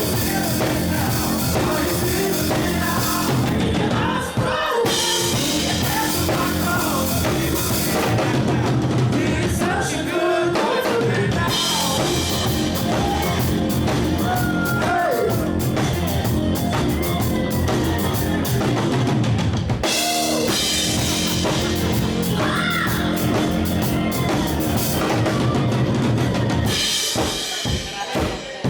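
Live band music with a drum kit, bass and a singer's sung vocal line. Near the end the music thins into pulsing beats with gaps between them.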